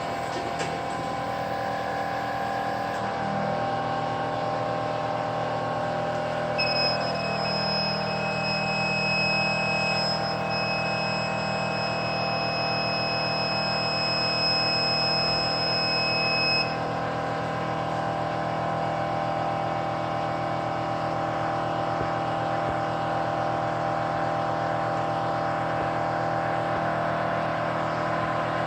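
BK-I300 BGA rework station running, its hot-air heater blowing with a steady hum. About a quarter of the way in, a high electronic beep from the station sounds continuously for about ten seconds, then stops.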